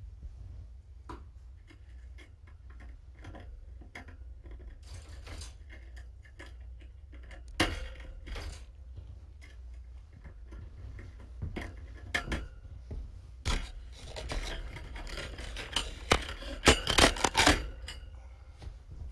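Rustling of a canvas sheet being handled close to the microphone, with scattered clicks and taps, getting busier and louder in the last few seconds.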